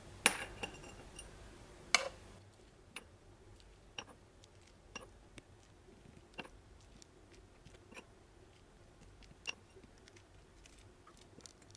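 Light taps and clinks of a small metal spoon, about one a second, as ground pistachio is scooped and dabbed onto baklava rolls in a metal baking tray; the loudest clink comes about two seconds in.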